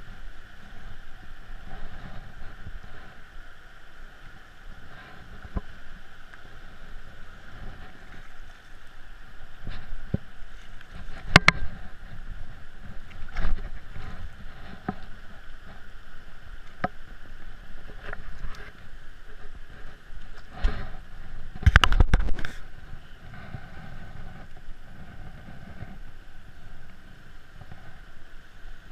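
Shallow rocky stream running over stones, with several sudden knocks, the loudest cluster about two-thirds of the way in.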